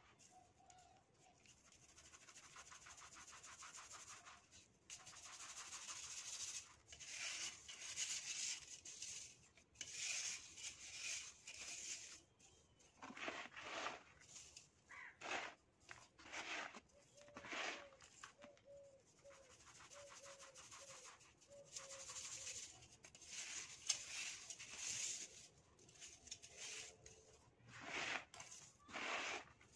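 Hands scooping, pressing and rubbing loose sand in a plastic tub. It makes a run of soft, gritty hissing swishes, some drawn out over a few seconds and others short and sharp.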